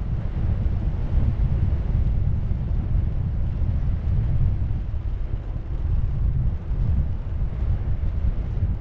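Airflow buffeting the microphone of a camera riding on a model glider in flight: a steady, loud low wind rumble with no clear motor tone.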